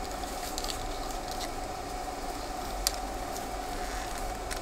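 Quiet room tone with a steady electrical hum, broken by a few faint short clicks, the sharpest about three seconds in.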